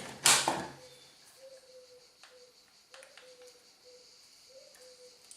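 Hard plastic of a cordless circular saw and its 20 V battery being handled: a short scraping rustle in the first half-second, then a few faint clicks.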